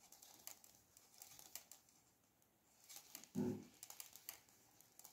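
Faint, scattered clicks of metal knitting needles working yarn, with one brief low sound about three and a half seconds in.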